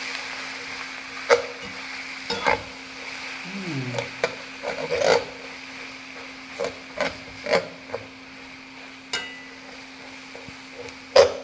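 Fried noodles sizzling in a hot pan as they are stirred. Sharp knocks of the utensil against the pan come every second or so.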